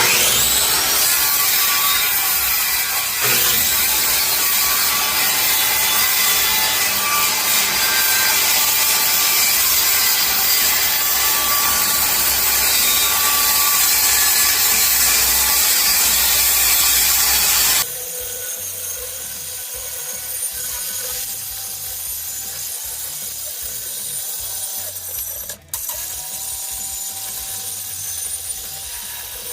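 A power tool working on wood, running steadily and loud for about eighteen seconds. It then drops abruptly to a quieter, steady running sound with a faint tone for the rest.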